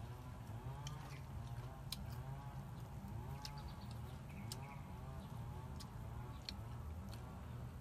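A steady background chorus of repeated rising-and-falling animal calls, about two a second, over a low hum. Scattered sharp crunching clicks sound now and then as fried crickets are chewed.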